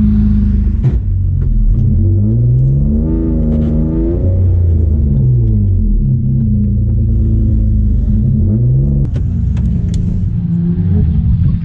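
Stock M50B25 inline-six of a BMW E36 325i with a straight-through blast pipe exhaust, heard on board, revving up and dropping back several times as the car is driven hard through a drift. A few sharp knocks are heard along the way.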